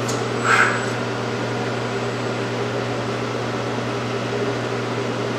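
CNC knee mill running, its electric motors giving a steady hum with a strong low tone, the coolant pump just switched on. A brief short sound about half a second in.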